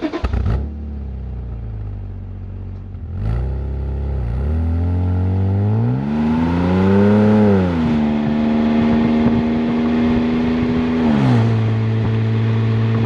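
BMW N52 straight-six running through an Active Autowerke aftermarket muffler: idling, then revved smoothly up from about four seconds in, held at raised revs for about three seconds, and dropping back to a steady idle. A brief clatter comes at the start.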